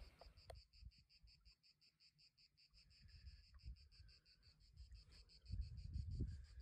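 Faint cricket stridulating: a high-pitched, evenly pulsed trill of about eight pulses a second that keeps going without a break. A low rumble of wind or handling noise comes up near the end.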